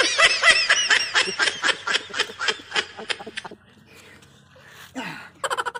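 A person laughing hard in quick, high-pitched peals for about three and a half seconds, falling quiet, then laughing again briefly near the end.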